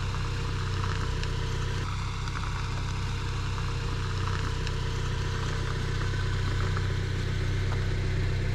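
A vehicle engine idling steadily, a low even hum with a faint steady whine above it.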